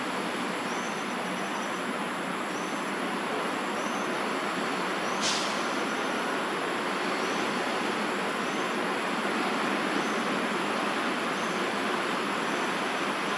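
Steady, dense outdoor background hiss, with a faint short high-pitched call repeating about every second and a half and one brief sharp click about five seconds in.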